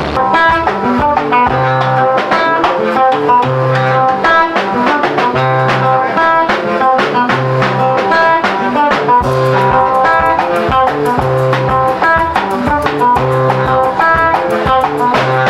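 Band music: quick, plucked guitar-like notes over a steady beat, with a low bass note about every two seconds.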